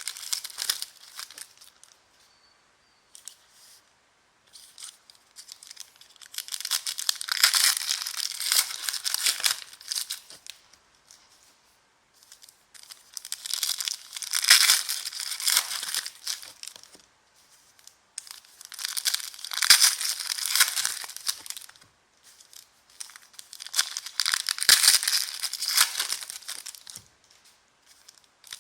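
Trading card pack wrappers being torn open and crinkled in four bouts of rustling a few seconds apart, with near-quiet gaps in between.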